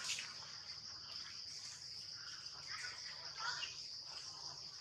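A steady, high-pitched insect drone from the surrounding trees, with a few faint short sounds about halfway through.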